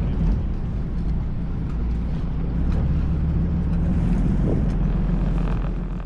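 Sightseeing boat's engine running with a steady low drone, with wind buffeting the microphone.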